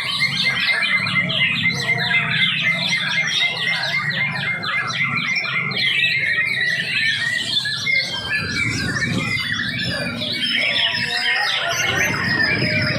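Many caged contest songbirds singing at once: a dense tangle of fast overlapping chirps and whistles, over a low steady background murmur.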